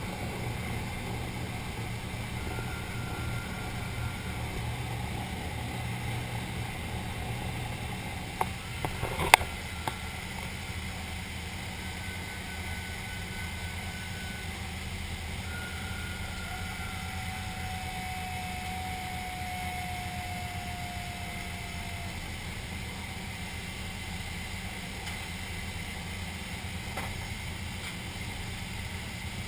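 Boeing B-29 Superfortress's four Wright R-3350 radial engines running steadily, heard from inside the aircraft as a low drone. A sharp knock comes about nine seconds in.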